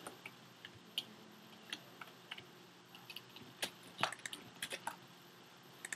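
A few scattered, faint clicks and taps of computer keys, irregularly spaced, over a faint low hum.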